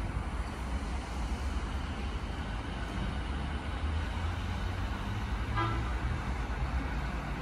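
Keiyo Line E233-5000 series electric train pulling out of the station, a steady low rumble of wheels and running gear as it moves off. A brief high tone sounds about two-thirds of the way through.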